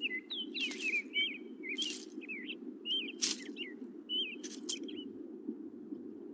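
Small birds chirping, a quick run of short wavering calls with a few sharper high notes among them, stopping about five seconds in. A steady low hum runs under them.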